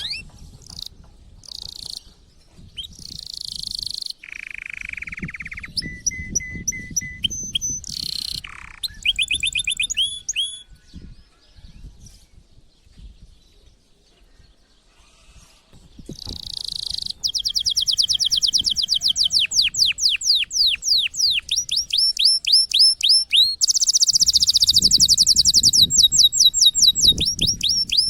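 Male domestic canary singing in breeding condition, excited for mating. It gives buzzy rolls and short whistled phrases, with a quieter pause in the middle, then launches into a long, fast run of repeated high sweeping notes.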